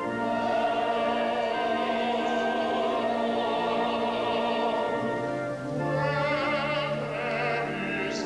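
Operatic singing with orchestral accompaniment: a voice holding long notes with vibrato.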